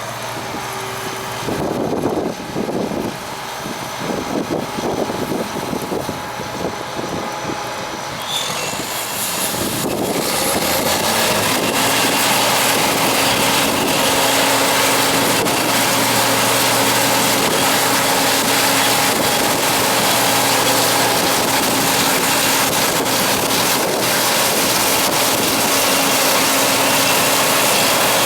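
Gleaner R42 combine harvester running in a soybean field. It is uneven and lower at first, then grows louder about ten seconds in as the machine comes close. It settles into a loud, steady running with a held engine tone.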